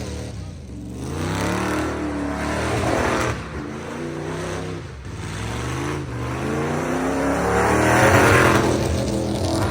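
Drag-racing engine accelerating hard down the strip. Its pitch climbs three times, dropping at gear shifts about three and five seconds in, and it grows loudest near the end.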